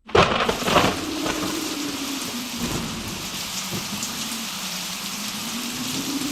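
Heavy rain falling steadily during a thunderstorm, opening with a sudden loud crack of thunder in the first second.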